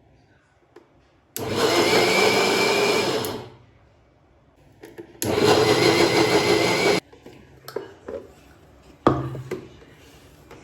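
Orange Novel 650 mixer grinder's motor run in two short bursts of about two seconds each. The first winds down and the second cuts off sharply, followed by a knock near the end.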